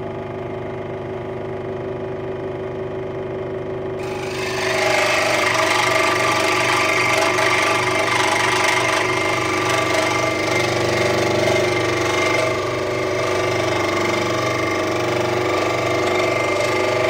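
Central Machinery 16-inch scroll saw running at full speed with a steady motor and blade hum. About four seconds in, the pinned-end blade starts cutting into quarter-inch MDF, and a louder, hissing cutting noise joins the hum and carries on.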